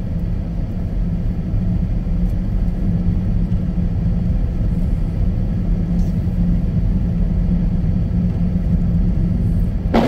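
Steady low rumble of a Jeep Patriot's engine and tyres heard from inside the cabin, driving slowly on a snow-covered road. Near the end a windshield wiper sweeps across the glass with a brief swish.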